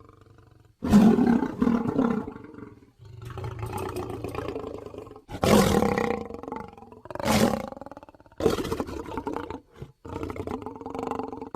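A string of dragon roars from a creature sound-effect reel: about five loud, rough roars with short gaps between them, the first starting suddenly about a second in, then a lower growl near the end.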